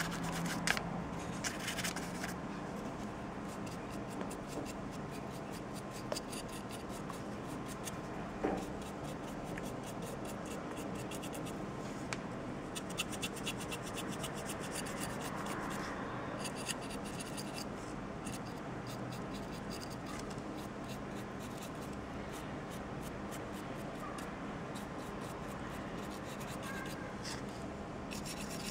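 Stiff paint-brush bristles scratching back and forth over the hard plastic plates of a miniature in rapid strokes during dry brushing, with a few light knocks.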